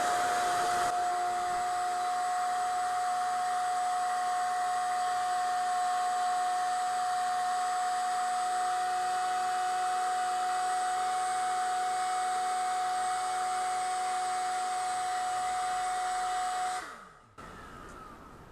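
Electric air blower feeding the fire of a homemade blast furnace, running with a steady whine and rush of air, then switched off near the end, its pitch falling as it spins down.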